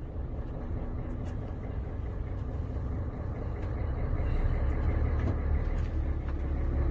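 Truck engine running under way, a steady low rumble with road noise heard from inside the cab, growing somewhat louder from about halfway through.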